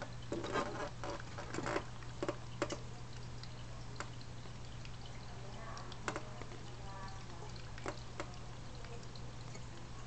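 A steady low hum with scattered faint clicks and taps, most of them in the first three seconds. A faint voice is heard about seven seconds in.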